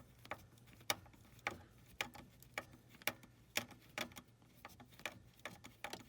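Hand tool backing out a Torx screw from the Jeep Wrangler's steering-column switch, making faint sharp clicks about twice a second.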